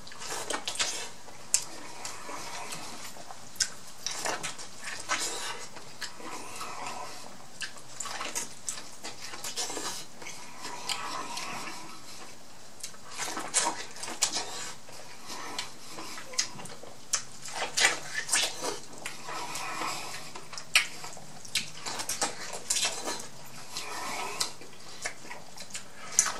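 Close-miked eating of corn on the cob: irregular crunchy bites, wet chewing and smacking, with short quieter pauses between bites.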